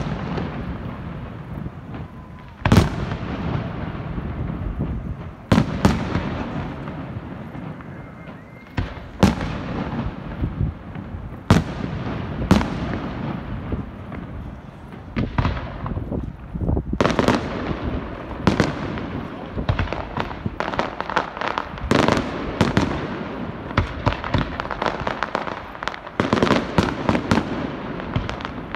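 Aerial fireworks bursting: sharp bangs every few seconds, each trailing off in an echoing rumble. From about halfway the bursts come much faster, overlapping with crackling.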